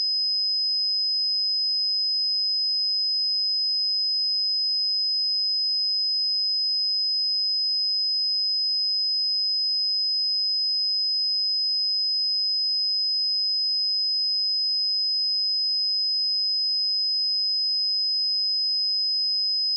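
A single steady 5051 Hz sine-wave test tone, one pure high-pitched note held at a constant level.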